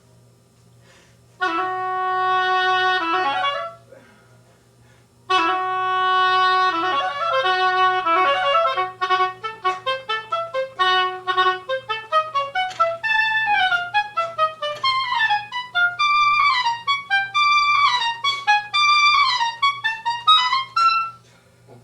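Oboe playing a phrase: a held note and a few short notes, a break, then the phrase again from the start, running on into a long string of quick tongued notes.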